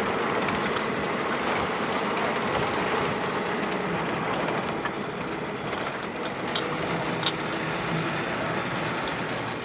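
Van driving over a rough dirt track, heard from inside the cab: a steady mix of engine and road noise with a constant dense rattle.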